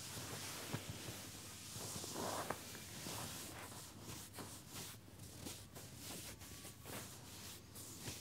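Hands rubbing and kneading a leg through denim jeans: soft fabric friction, becoming a run of short, separate rubbing strokes in the second half.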